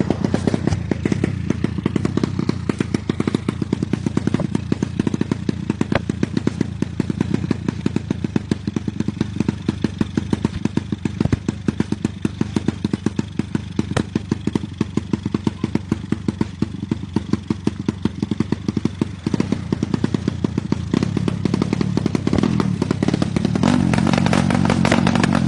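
Drag-racing motorcycle engine running steadily, with a fast, even pulsing beat.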